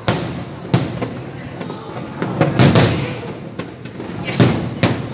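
Aerial fireworks bursting overhead: about half a dozen sharp bangs at uneven intervals, each followed by a rolling, rumbling echo.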